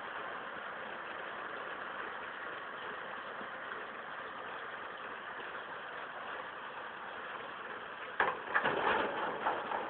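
John Deere 3040 tractor and Krone KR155 round baler running steadily. About eight seconds in, a run of louder, irregular clunks and rattles starts.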